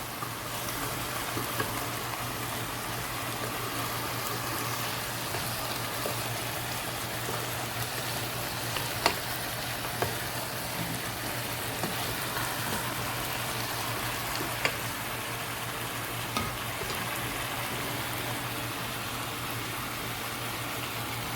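Chicken pieces and diced vegetables sizzling steadily as they fry in a pan on high heat, with a few sharp clicks of a spatula against the pan as they are turned.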